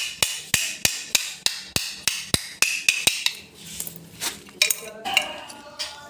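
Rapid sharp knocks, about three a second, of a screwdriver striking a plastic surface-mount socket box; the knocks thin out to a few scattered ones after about three seconds.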